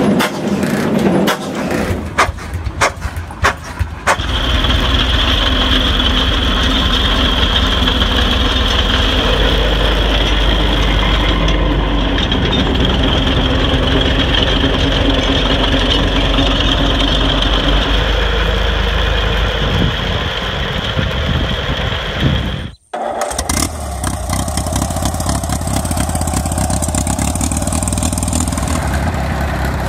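Vintage tractor engines running one after another. First a Fairbanks-Morse tractor engine firing in sharp, uneven beats for about four seconds. Then a Bates Steel Mule's engine runs steadily with a high whine until a sudden cut, and after it an Oliver HG crawler's 2.2-litre four-cylinder engine runs steadily.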